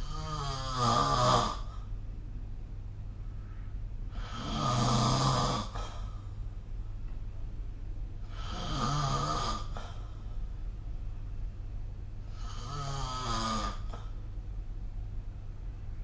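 A person snoring in sleep: four snores about four seconds apart, each lasting a second or so, the first two the loudest. A steady low hum runs underneath.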